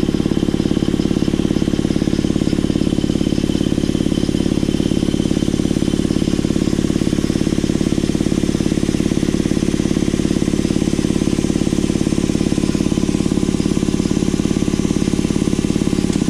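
Rebuilt Ingersoll Rand T-30 model 2475 belt-driven air compressor pump running steadily with a fast, even chugging beat. Its automatic tank drain valve is leaking air out the bottom, so it is not building much pressure.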